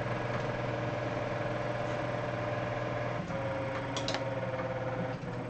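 A motor or engine running steadily: a constant low hum with a steady mid-pitched tone that shifts slightly about three seconds in. A couple of faint clicks come about four seconds in.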